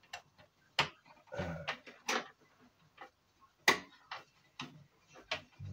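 Sharp clicks and knocks of hard plastic and metal parts being handled inside an old desktop PC case while cables are unplugged and pulled free. The sharpest knock is about two-thirds of the way in.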